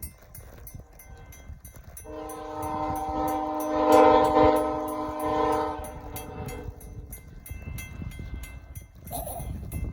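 Via Rail P42DC locomotive's multi-chime air horn sounding one long blast of several steady tones together, swelling to its loudest in the middle and fading out after about five seconds.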